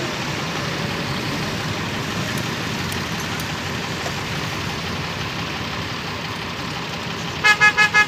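A JCB backhoe loader's diesel engine running steadily while the machine works. Near the end a loud electronic beeping starts, rapid at about five beeps a second.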